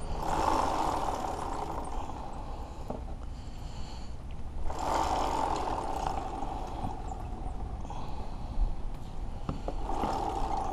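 Aerosol can of chain lube spraying a dirt bike's chain in three hissing bursts of about two seconds each, roughly five seconds apart.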